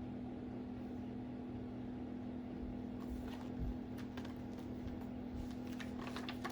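A steady low hum, with faint short clicks and rustles in the second half.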